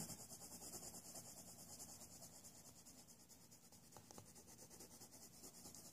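Faint, fast scratching of a Faber-Castell Polychromos colored pencil stroked back and forth over toothy coloring-book paper, blending a light color over darker shading.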